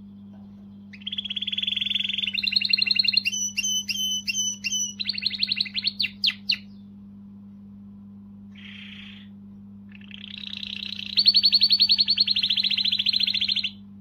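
Orange domestic canary singing: fast rolling trills and clipped repeated notes for about five seconds, a short burst, then another long rapid trill that stops sharply near the end. A steady low hum runs underneath.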